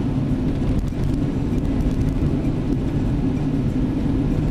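Steady road noise heard inside a moving car: the tyres rumbling on a coarse, big-stone chip-seal road surface, over the engine's hum.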